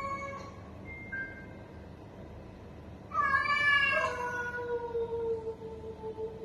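Domestic cats yowling at each other in a territorial standoff, with long drawn-out yowls. About three seconds in, a louder yowl starts high, drops and carries on as a long low yowl.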